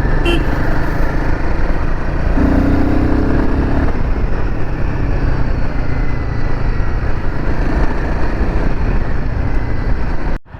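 Royal Enfield Himalayan 450's single-cylinder engine running under way, with steady wind and road noise; it cuts off suddenly near the end.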